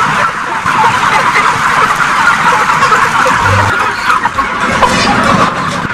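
Large flock of broiler chickens packed into a shed, many birds clucking and peeping at once in a dense, continuous chatter.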